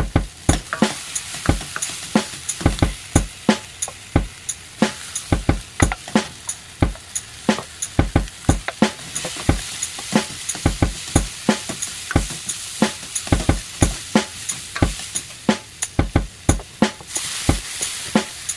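Egg fried rice stir-frying in a hot pan: a steady sizzle under a metal spatula or ladle knocking and scraping against the pan several times a second as the rice is tossed.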